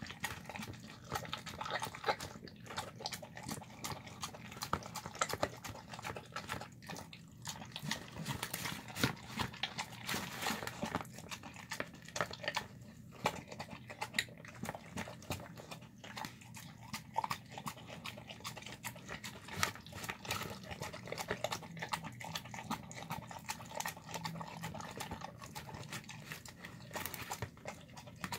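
A dog eating a moist meal of rice, beans and chicken from a plastic tub, with quick, continuous smacking and chewing.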